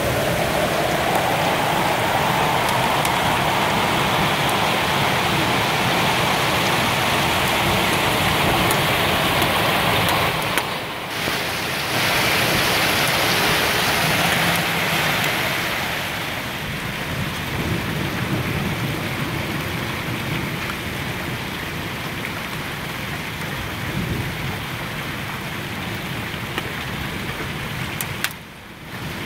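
Hail mixed with heavy rain pelting down in a dense, unbroken hiss. It drops out briefly twice and is a little softer from about halfway, as the hailstorm begins to ease.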